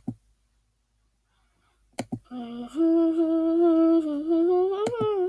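A person humming one long, steady note that rises near the end, after about two seconds of near silence. A few sharp clicks come at the start, at about two seconds and near the end.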